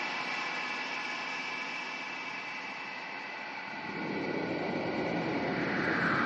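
Anime battle sound effects: a steady hiss with faint high ringing tones, then about four seconds in a low rushing rumble swells up, with a falling whoosh starting near the end as a sword slash cuts across.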